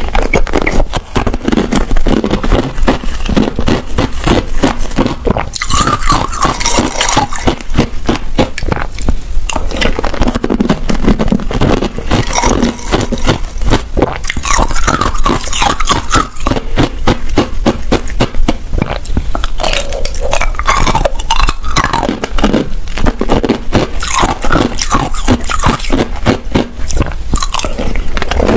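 Thin clear ice being bitten and chewed: a dense, continuous run of sharp cracks and crunches as the brittle sheets shatter between the teeth.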